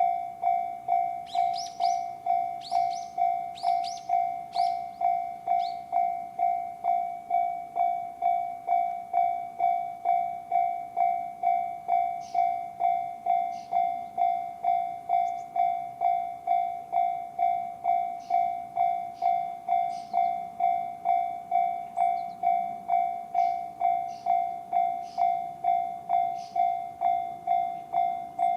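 Japanese railway level-crossing warning bell sounding the JR standard electronic ding, repeating steadily about one and a half times a second. An approaching train's low rumble builds under it near the end.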